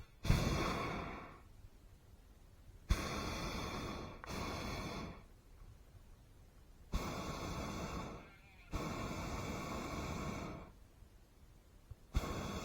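Hot air balloon propane burner firing in repeated blasts of rushing noise, each a second or two long and starting abruptly, about six in all with short gaps between.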